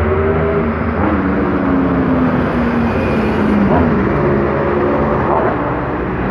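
City bus passing close by, its engine tone sliding down in pitch as it goes past, over steady multi-lane road traffic.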